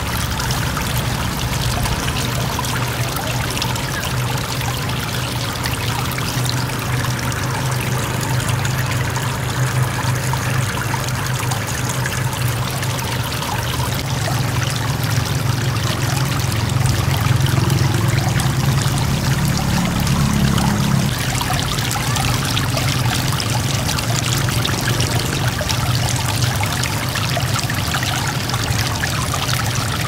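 Water from a small three-tier cement waterfall splashing and trickling steadily into a goldfish pool.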